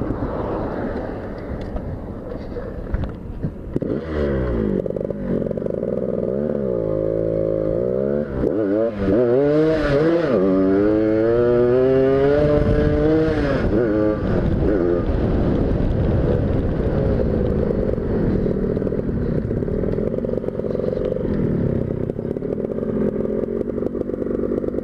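Tuned-up motorcycle engine being ridden hard, its pitch rising and falling with the throttle and gear changes. The loudest climbs in pitch come about nine to fourteen seconds in.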